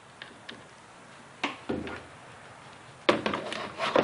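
Plastic windshield cowl panel being bent and handled: a few faint ticks, a sharp click and a knock about a second and a half in, then a burst of clattering and knocking from plastic near the end.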